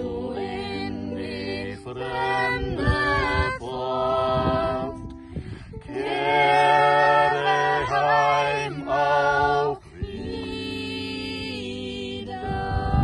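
A man and women singing a German-language homeland song (Heimatlied) in harmony, with long held notes as the song draws to its close, and a ukulele accompanying them.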